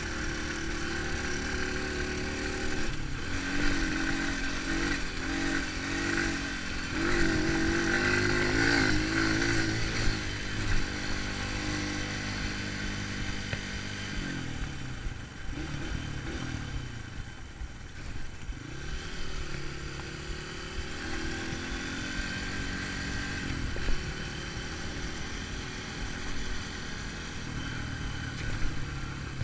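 Dirt bike engine running as the bike rides a gravel road, its pitch rising and falling with the throttle; the engine note drops about halfway through and climbs again as the rider gets back on the gas.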